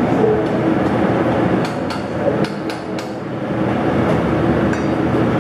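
Steady rushing din of a commercial kitchen's exhaust hood and gas range, with a few sharp metallic clinks of a ladle against a stainless pot between about one and a half and three seconds in.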